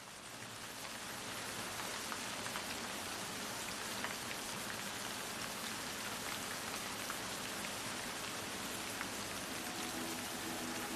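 Steady hiss of rain with scattered drop ticks, fading in over the first couple of seconds and then holding even. A few sustained music notes come in near the end.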